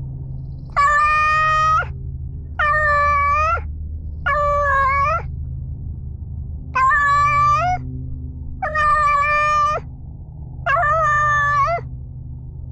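Domestic cat meowing six times, each meow drawn out for about a second with a flat pitch and a slight rise at the end, about two seconds apart and very close to the microphone. A steady low rumble runs underneath.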